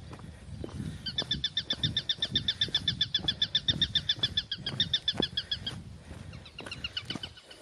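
A bird's rapid trill: one note repeated about ten times a second, starting about a second in and stopping near the end, over low dull thuds.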